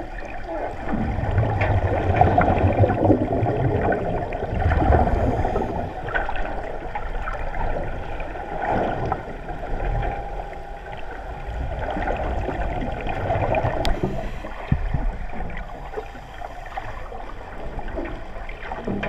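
Water moving in uneven surges that swell and fade every few seconds, muffled and mostly low in pitch.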